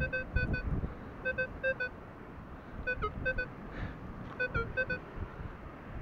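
Minelab Equinox 800 metal detector beeping on a target: short clipped tones in quick runs of about four, repeating roughly every second and a half. The pitch is steady, with a couple of beeps dipping lower.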